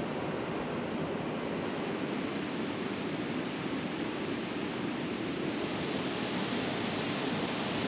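Steady rushing of flowing water from a karst spring running high after heavy rain. It is a constant, even noise that turns slightly brighter about five and a half seconds in.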